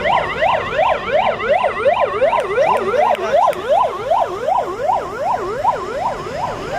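Vehicle siren in a fast yelp, its pitch sweeping up and down about three times a second without a break.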